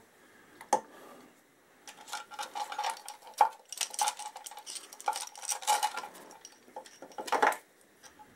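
Steel cam chain of a Honda XL1000 V-twin rattling and clinking as it is handled and fitted over the camshaft sprocket: a sharp click near the start, then a run of light metallic clinks, with a louder clatter near the end.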